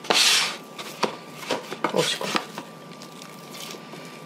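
Hands pressing and pushing sourdough bread dough down in a plastic tub to crush the remaining flour lumps: a loud rasping rub of hand against dough and plastic at the start, then softer rubs, squishes and light clicks.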